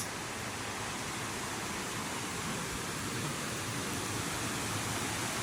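Steady rushing of flowing creek water, an even hiss with no breaks.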